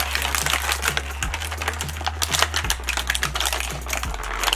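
Crinkling and clicking of clear plastic toy packaging being picked and pried open by hand, a dense run of small irregular crackles. Background music with a low bass line underneath.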